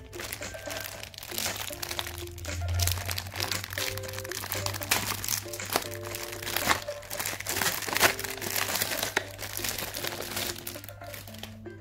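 Clear plastic snack tray and plastic sleeve crinkling and crackling as they are handled, over background music with a simple tune of short notes.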